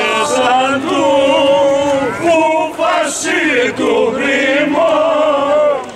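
A group of men singing a traditional Kozani carnival fanos song together, with long drawn-out notes and a short break for breath near the end.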